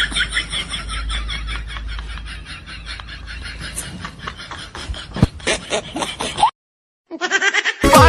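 A rapid run of short snickering laughs over a low steady hum, cutting off suddenly about six and a half seconds in.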